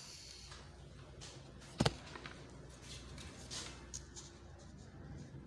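Wooden blackboard drawing tools against a chalkboard: one sharp double knock about two seconds in, then a few lighter taps and a short scratch of chalk along the ruler.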